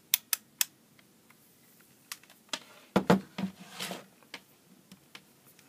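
Clicks and knocks of a handheld digital multimeter and its test probes being handled on a wooden desk: three quick sharp clicks at the start, then a cluster of heavier knocks about three seconds in.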